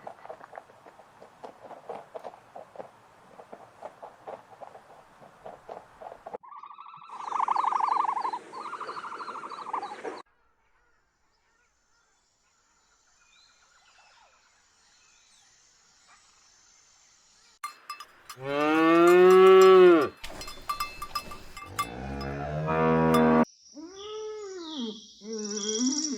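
A run of separate animal calls. The loudest is a long, drawn-out cow moo that rises and falls, about two-thirds of the way in, followed by shorter rising-and-falling calls. Earlier there are scattered clicks and a shorter tonal call, with a quiet gap between.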